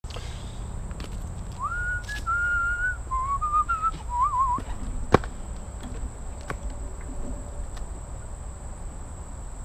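A person whistling a short wavering tune for about three seconds, followed about five seconds in by a single sharp click, over a steady low outdoor rumble.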